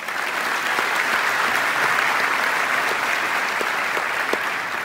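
Large audience applauding: dense clapping that swells in at the start, holds steady and begins to taper off near the end.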